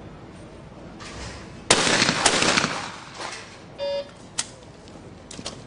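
Shotgun firing at skeet targets: a sharp shot about a second and a half in, a second crack about half a second later, and echo trailing off for about a second. Then a short electronic beep and a few light clicks.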